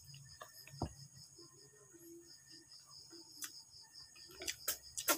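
A steady chorus of crickets chirping, with scattered clicks and taps from a meal of snails and rice being eaten at the table. The clicks come closer together near the end.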